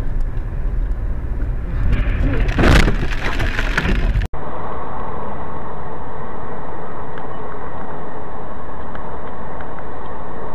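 In-car dashcam audio of a moving car: heavy low road and wind rumble, with a loud burst of noise about two and a half seconds in. About four seconds in the sound cuts off abruptly and gives way to a steady, duller hiss of road noise.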